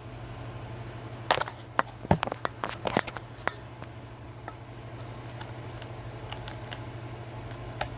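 A bunch of light clicks and knocks from small objects being handled, mostly between about one and three and a half seconds in, over a steady low hum.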